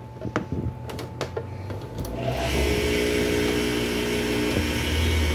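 A few clicks of handling, then, about two seconds in, the electric motor of a centrifugal juicer switches on. The repaired machine runs empty at full speed with a steady motor hum and the spin of its grating blade.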